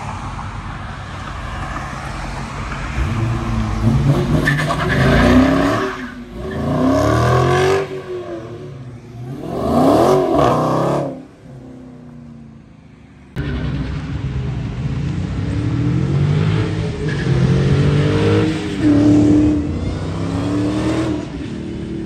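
Dodge Challenger's engine revving hard as the car pulls out and accelerates away, its pitch climbing in repeated rising pulls through the gears before fading off. The engine sound then cuts back in abruptly with another run of hard acceleration, pitch rising again in several pulls.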